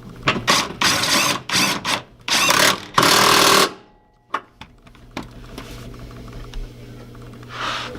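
Power wrench driving the brace bolts on a JZX90's rear subframe, in several short bursts and then one longer run of about half a second, followed by a few light clicks of tools and hardware.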